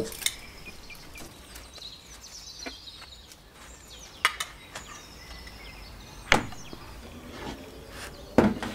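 Occasional clicks and knocks of metal tongs against a plate and grill as foil-wrapped sweet potato parcels are lifted off, with a sharper knock about six seconds in and another near the end.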